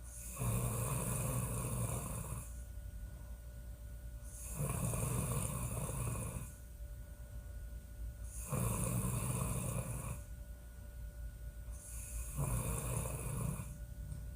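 A woman snoring in a steady rhythm: four snores, one about every four seconds, each lasting about two seconds, with quieter breaths between. A steady low hum runs underneath.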